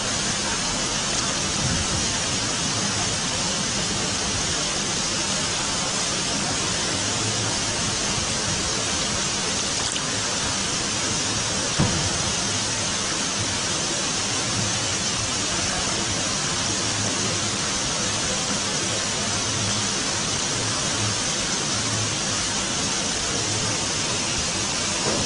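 A steady, even hiss of noise that holds the same level throughout, with a single short click about twelve seconds in.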